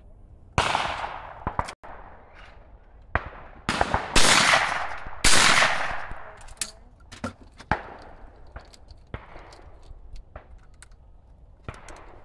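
Shotgun shots fired at clay targets: several sharp reports, the loudest two about a second apart around four to five seconds in, each followed by a fading echo, with fainter shots and clicks after.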